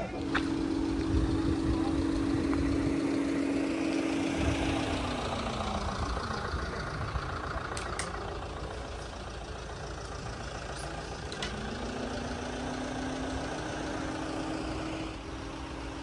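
A motor vehicle's engine running with a steady hum. Its pitch drops about five seconds in, then climbs back up about twelve seconds in.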